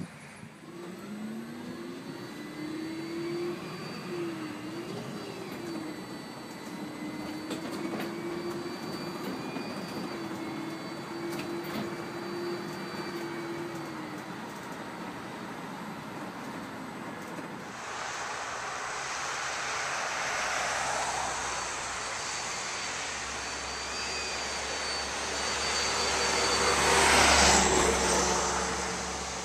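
A paratransit bus's electric drive motor whining as the bus drives, the pitch rising and wavering with speed, heard from the cab. Then the bus passes close by, its road and tyre noise swelling to a peak near the end with a faint high whine over it.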